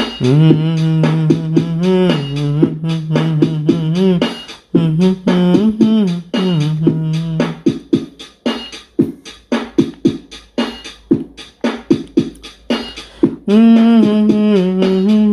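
Background music: a held melodic line over a fast, steady percussive beat. The melody drops away for several seconds in the middle, leaving mostly the beat, then comes back near the end.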